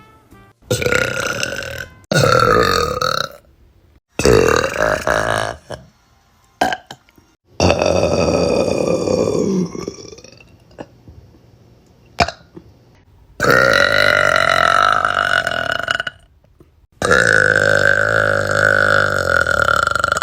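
A string of about six loud burps from young women, a second or more apart. The first few are short, and the later ones are long and drawn out, lasting two to three seconds each.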